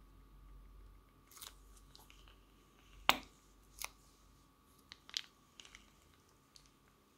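Slime being squeezed out of a plastic piping bag, giving irregular sharp crackles and pops, the loudest about three seconds in.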